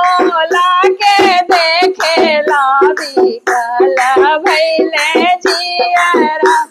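A woman singing a Bhojpuri devotional bhajan, accompanied by her own hand strokes on a dholak in a steady beat.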